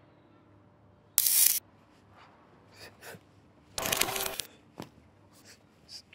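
Two short bursts of harsh, static-like digital glitch noise, one about a second in and a longer one about four seconds in, with faint clicks and rustles between them.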